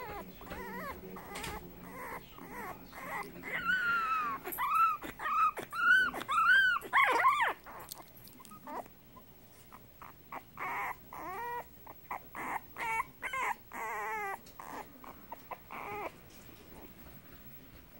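A 24-day-old Boston Terrier puppy howling in a series of thin, arching cries that rise and fall in pitch. The cries are loudest a few seconds in, then become shorter, softer whimpering cries that stop a couple of seconds before the end.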